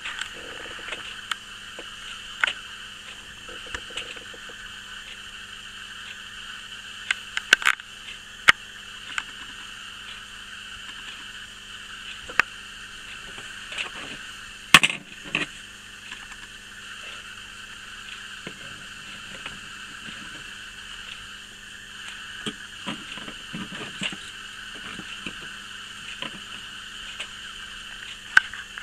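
Steady hiss with a faint hum, broken by scattered light clicks and knocks; the loudest knock comes about halfway through.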